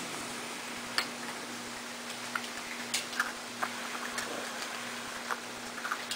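Pembroke Welsh corgi puppies eating dry kibble from a metal pan: scattered, irregular clicks and crunches of kibble and teeth against the pan.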